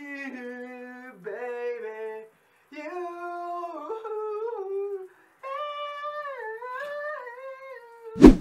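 A man singing in a small tiled shower. He holds long notes that slide up and down in pitch, some in a high falsetto, with two short breaks. A sudden loud hit comes near the end.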